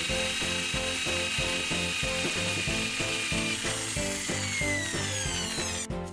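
Handheld electric drill boring a hole into the metal head housing of a benchtop drill press, a steady high whine with mechanical rattle; the whine falls in pitch over the last couple of seconds and cuts off near the end. Background music with a steady beat runs underneath.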